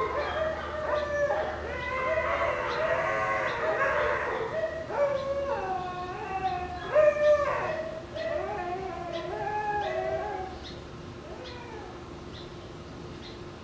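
Shiba Inu puppies giving high, wavering fox-like screams and yowls while play-fighting over a bone, the loudest outburst a little past the middle. The calls stop about three seconds before the end.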